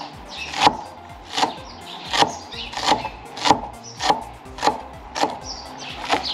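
Knife chopping fresh parsley on a cutting board: about nine even, knocking strokes, one every two-thirds of a second or so.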